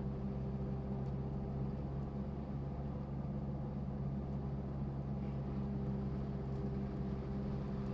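Vehicle engine running steadily at a constant low pitch, with no revving.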